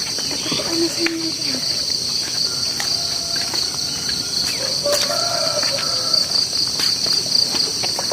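Dense insect chorus in a forest: a steady, high-pitched buzz that runs on without a break, with faint scattered clicks over it.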